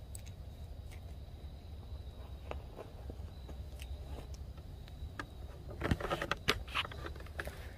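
Scattered crunches and clicks of footsteps in dry leaf litter, with a quick flurry of them about six seconds in, over a low steady rumble.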